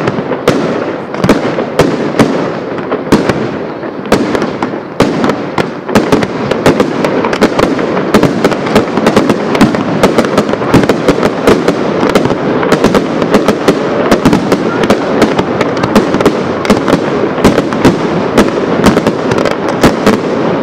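Professional display fireworks: aerial shells and single-shot tubes bursting in rapid succession, a dense string of sharp reports over continuous crackle. The reports come even thicker from about six seconds in.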